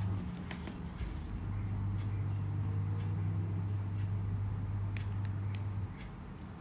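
A steady low hum that drops out for about a second near the start and again near the end, with a few light clicks from a laptop touchpad being clicked.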